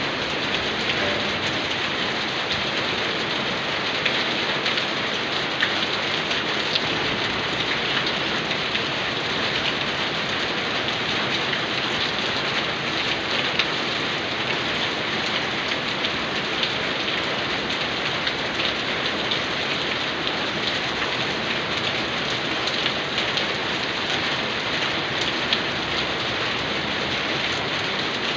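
Steady rain falling, an even hiss with a dense patter of drop hits.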